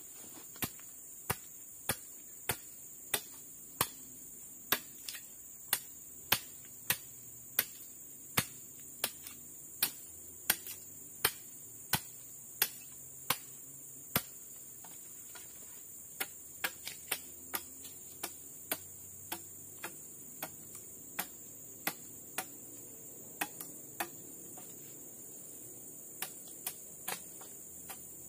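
Machete blade striking into forest soil again and again, digging a hole for a wooden post: sharp, regular clicks about one and a half a second at first, then after a short pause sparser and less even.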